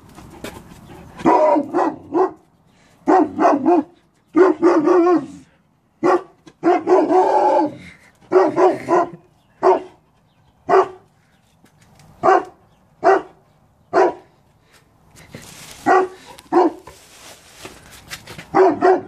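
Newfoundland dog barking over and over, loud short barks coming singly or in quick twos and threes.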